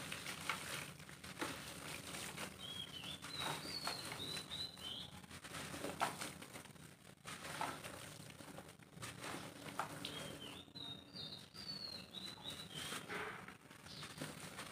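A block of dry roasted dirt being crumbled by hand, the loose soil pouring and pattering into a basin of water in irregular crumbles and showers. A bird chirps in two short runs of high notes, a few seconds in and again about ten seconds in.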